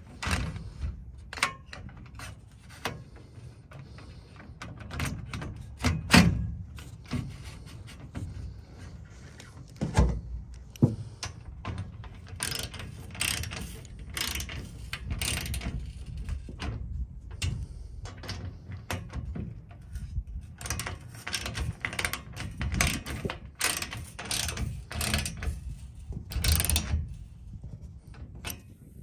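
Metal clicks and knocks as aluminium solar racking rails and a splice bracket are fitted together by hand, then a ratchet wrench with an Allen bit ratcheting in quick runs of clicks, tightening the rail bracket, through much of the second half.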